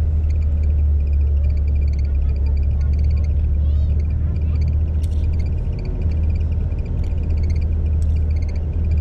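Coach engine running in a steady low rumble, heard from inside the passenger cabin as the bus moves slowly. Faint, repeated high-pitched chirps sound above it.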